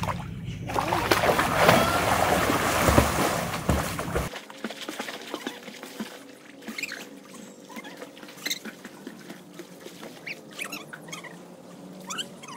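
Water splashing loudly for about three seconds as a swimmer plunges into a pond and strikes out, then quieter scattered splashes and lapping as people wade and swim.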